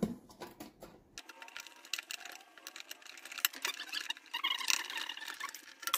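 Irregular small metallic clicks and clinks of nuts being fitted onto the studs of an electric tea maker's heating element on its metal underside, with a denser run of clinking a little after four seconds.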